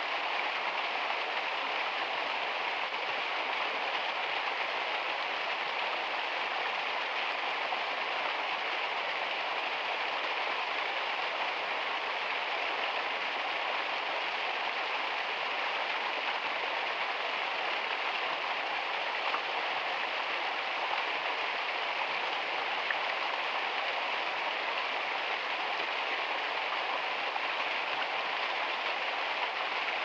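Small waterfall splashing over rocks: a steady, unbroken hiss of falling water.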